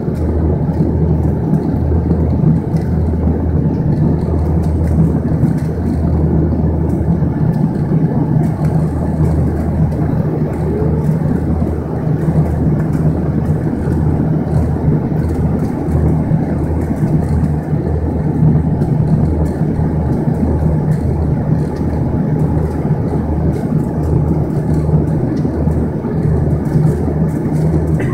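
Bombardier Dash 8-100 twin-turboprop engines and propellers droning steadily, heard from inside the passenger cabin during the descent on final approach.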